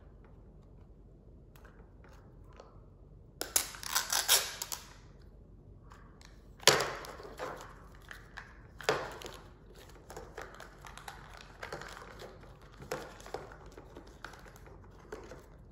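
Plastic wrapping of a Mini Brands toy capsule crinkling and tearing as it is unwrapped by hand: a burst of crinkling about three and a half seconds in, sharp crackles near seven and nine seconds, then softer crinkling.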